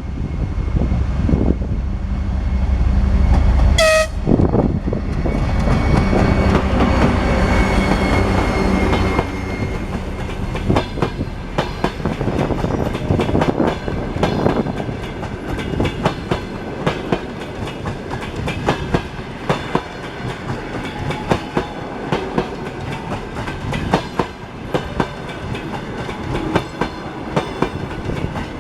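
Diesel locomotive passing close by, its engine rumbling heavily, with one short horn toot about four seconds in. After that, the cars' wheels click rhythmically over the rail joints as the train rolls past.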